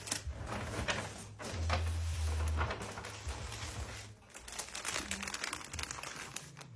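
Plastic-wrapped snack packages rustling and crinkling, with irregular light clicks and taps as they are handled and set into an acrylic trunk.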